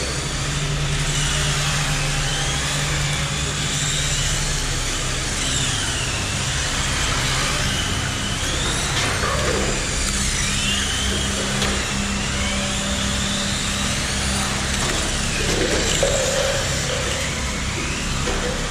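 Several Tamiya radio-controlled model cars racing, their electric motors whining high and gliding up and down in pitch as the throttle is opened and let off.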